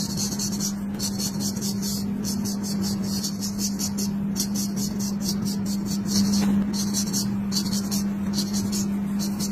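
Straight razor shaving hair down to the scalp over a comb, making quick repeated scraping strokes that come in short runs with brief pauses. A steady low hum runs underneath.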